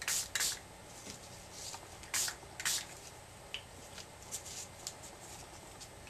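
Small pump spray bottle of homemade alcohol ink (marker ink in rubbing alcohol) giving several short hissing spritzes onto paper doilies, two pairs of them about two seconds apart.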